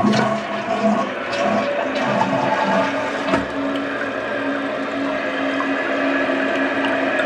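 Mansfield Alto toilet flushing, heard with the tank lid off: water rushes steadily, and a steady tone sets in about two and a half seconds in.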